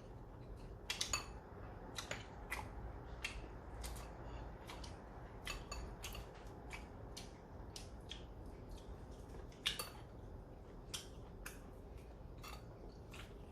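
Metal tableware clicking and clinking against dishes while eating, in irregular sharp taps about one or two a second, the loudest about a second in and near the end.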